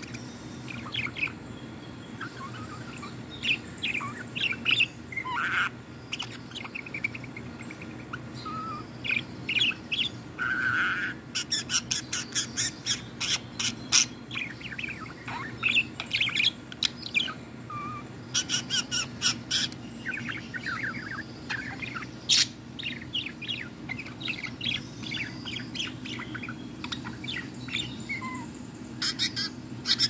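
Female budgerigar chattering: a string of short chirps and warbles broken by runs of rapid clicking trills, twice in the middle.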